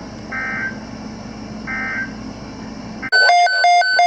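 Weather-radio broadcast hiss carrying two short warbling data chirps, typical of the EAS end-of-message code sent after a warning. About three seconds in, a loud electronic alert tone cuts in abruptly, switching between a higher and a lower pitch about twice a second.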